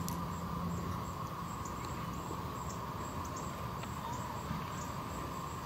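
Steady background noise: a constant high whine and a faint low hum, with no distinct sound events.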